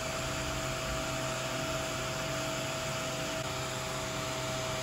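Diode laser module's small cooling fan running, a steady whir with a steady hum over it.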